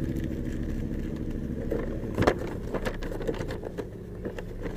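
Car engine idling as a steady low hum, with scattered clicks and a sharper knock about two seconds in.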